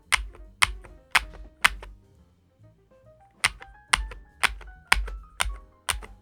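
Keys of a DAREU COOL60 magnetic-switch keyboard struck one at a time, about two a second, each a sharp clack with a low thock. Four strokes, a pause of about a second and a half, then a steady run of strokes to the end. Faint background music plays underneath.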